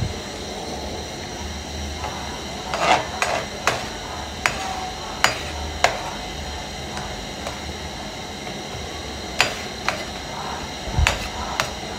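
Metal slotted spoon clinking and scraping against a metal frying pan while stirring, in a series of sharp, irregularly spaced clinks.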